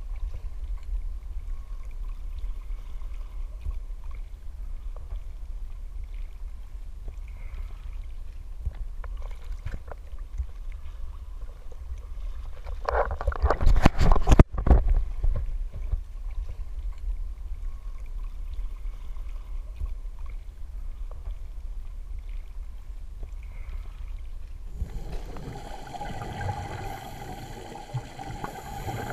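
Sea water sloshing against a GoPro's waterproof housing at the ocean surface: a steady low muffled rumble, with one loud splashing burst about halfway through. Near the end the sound turns to the muffled underwater gurgle of scuba regulator bubbles.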